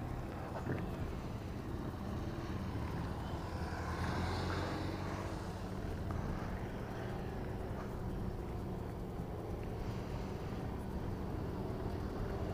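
A motorcycle engine running low and steady as the bike rolls slowly.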